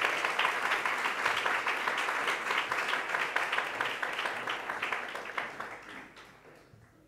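Audience applauding: dense clapping from many hands that holds steady for about five seconds, then dies away toward the end.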